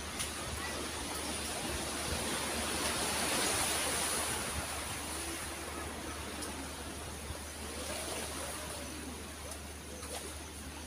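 Sea surf washing on the shore: a steady hiss that swells to a peak about three to four seconds in and then eases off.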